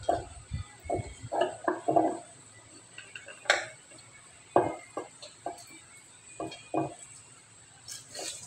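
Lemon halves being pressed and twisted on a plastic hand citrus juicer: irregular short scraping, squelching strokes, with a few sharp plastic clicks.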